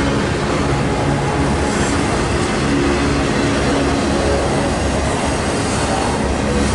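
Union Pacific double-stack intermodal well cars rolling past: a steady, loud rumble and clatter of steel wheels on rail, with a few brief high squeals from the wheels.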